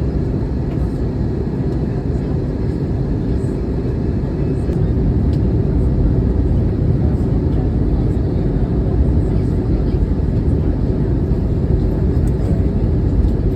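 Steady low roar of an Airbus A320neo airliner's engines and airflow heard inside the cabin, growing slightly louder about halfway through.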